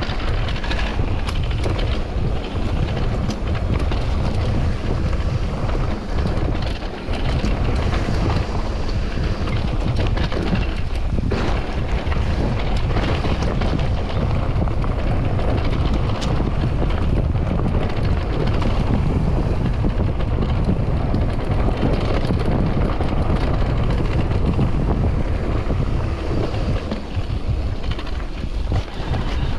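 Heavy wind buffeting a bike-mounted or helmet camera microphone during a fast mountain-bike descent, with many short clicks and rattles from the bike and tyres over rough trail.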